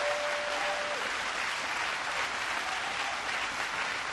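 Crowd applauding steadily, with one voice holding a long cheer for about the first second.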